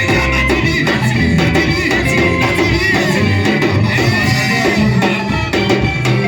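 Church worship band playing upbeat music: drums keeping a steady beat under guitar and other instruments, with singing.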